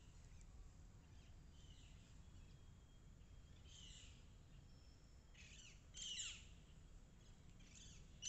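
Faint calls of wild birds over low background noise: a few short calls, each sliding down in pitch, loudest about six seconds in and again near the end.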